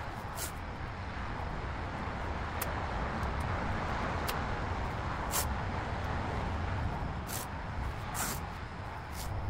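Masking tape pulled off the roll and pressed along a car's window trim, in about six short rasps, over a steady low background rumble.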